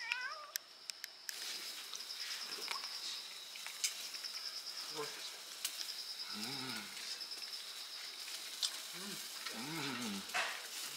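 A cat meows briefly at the very start, over a steady high chirping of insects. Later a man makes a few short, low admiring hums.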